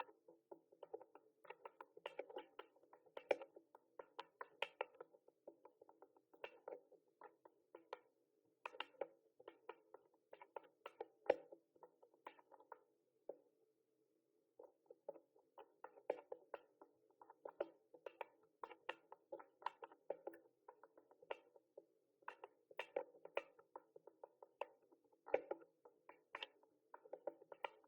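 Typing on a mechanical keyboard: a quick, uneven run of key clicks, several a second, with a short pause about halfway through.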